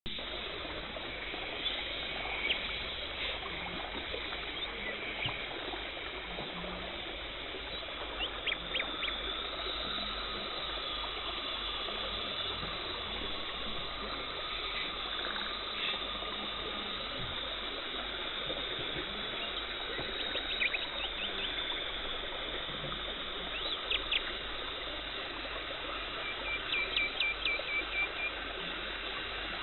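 Teeth-cleaning equipment at work, likely an ultrasonic scaler's water spray and suction: a steady watery hiss and gurgle. Short squeaky chirps come now and then, and a quick run of them comes near the end.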